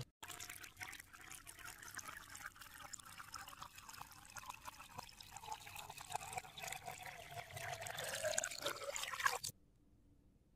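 Water pouring and trickling steadily, starting and stopping abruptly, with a rising tone over its last second.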